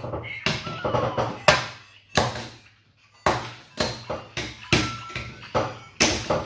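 LEGO Super Mario interactive figure being hopped across the plastic LEGO course, tapping down on the bricks about twice a second, with a short pause near the middle.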